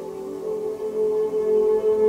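Calm background meditation music of long, sustained ringing tones. A new, stronger tone comes in just after the start and swells about a second in.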